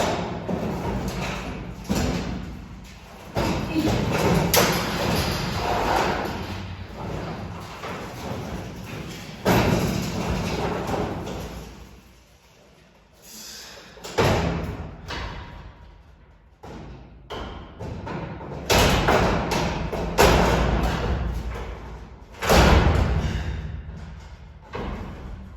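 A series of heavy thumps and bangs, loud knocks with rumbling noise between them and a couple of short quieter gaps.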